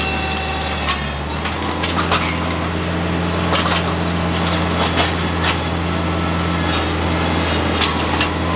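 Compact tractor's engine running steadily under load, driving a PTO post hole digger auger that is grinding into rock. Sharp cracks and clicks come irregularly throughout as the auger bit breaks up the rock.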